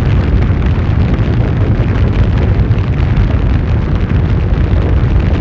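A loud, steady low rumble with a rough, crackling texture.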